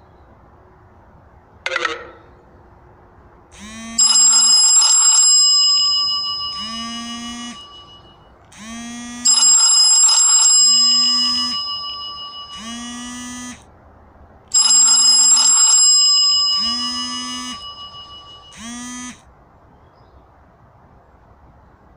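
A mobile phone ringtone: a synthesized bell-like tune, a chime that rings and fades followed by short upward-bending notes, played three times about five seconds apart. A quick falling swoop comes about two seconds in, before the first ring.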